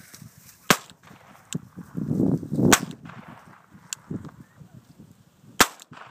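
Three sharp, loud cracks about two and three seconds apart, with a rough rushing noise building just before the second.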